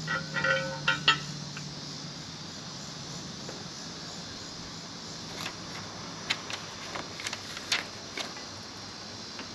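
Metal hardware clinking as a steel U-bolt and step bracket are fitted around a boat trailer tongue. A few ringing clinks in the first second or so, then scattered sharp taps and clicks from about five to eight seconds in.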